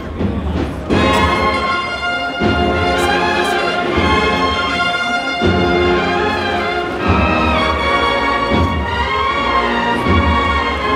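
Brass band playing a slow processional march, with sustained brass chords over a bass drum beat about every second and a half.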